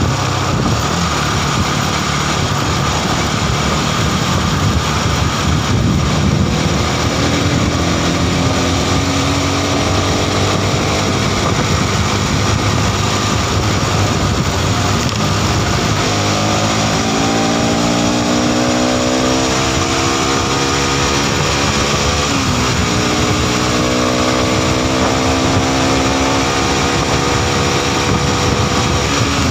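Modenas NS200's single-cylinder engine pulling at highway speed under a steady rush of wind and road noise. About halfway through its note becomes clear and climbs, dips briefly once about three-quarters through, then climbs again.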